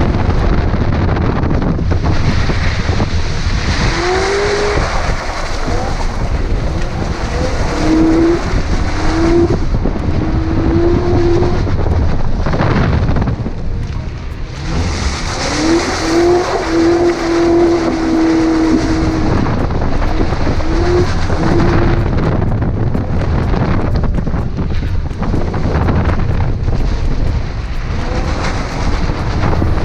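A car driving hard off-road, its engine revving up and down in short pulls over a steady loud rumble, with wind buffeting the microphone.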